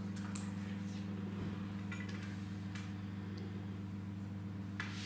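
Steady low electrical hum, with a few faint small clicks and ticks from hands working a plastic IV catheter and tape at a dog's foreleg.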